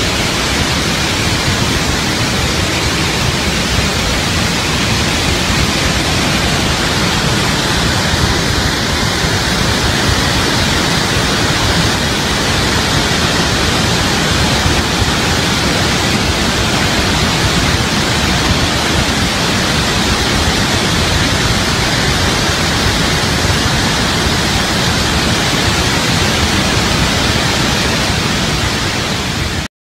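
Loud, steady rushing of a massive surge of muddy floodwater churning down a rocky mountain gorge. It cuts off suddenly near the end.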